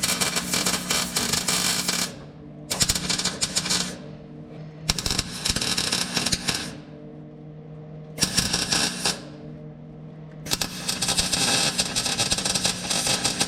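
MIG welder laying a bead on sheet steel in five crackling, sputtering runs of one to three seconds each, with short pauses between, stitching new metal into a rusted car body. A steady low hum runs underneath.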